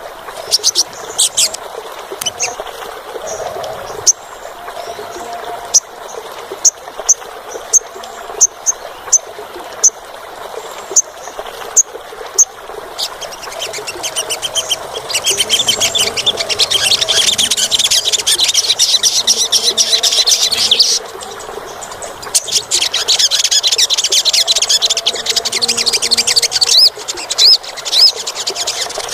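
Olive-backed sunbird calling: sharp, high chips about one or two a second, then a rapid, shrill trilling song from about halfway through. The song breaks off briefly and resumes.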